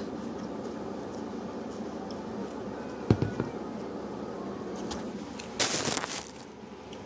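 A water bottle being handled: a single thump about three seconds in, then a short, loud rushing hiss near the end, over a steady background hum.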